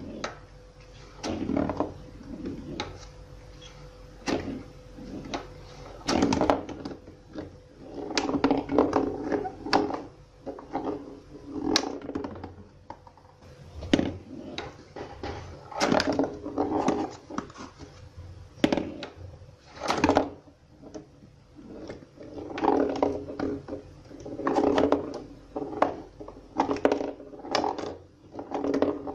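A small ball rolling and bouncing around a cardboard pinball playfield, with irregular knocks as it hits the cardboard walls and the cardboard flippers are flicked against it, between stretches of rolling clatter.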